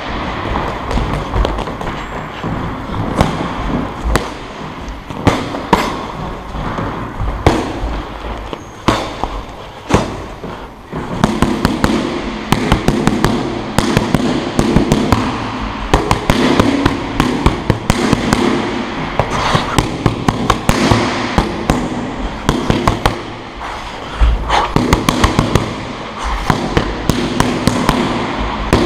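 Boxing gloves smacking into focus mitts in fast combinations, heard close up from the mitt holder. Separate punches at first, then rapid unbroken flurries from about eleven seconds in.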